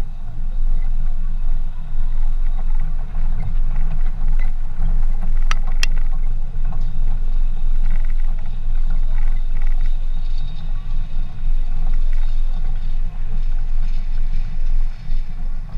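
Vehicle driving over a rough dirt track, heard as a steady low rumble with wind buffeting the hood-mounted microphone. Two sharp clicks come a little over halfway through.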